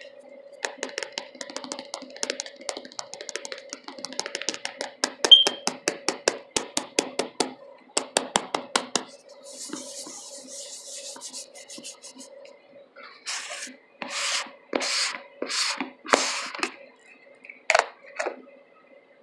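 Fingers tapping rapidly on a plastic Argo cornstarch canister held close to the microphone, followed by rubbing and several louder scraping strokes on the container.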